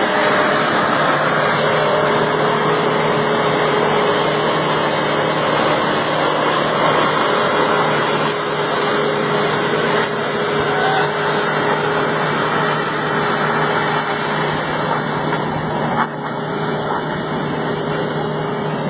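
A motor running steadily with a constant hum, under a loud, even hiss.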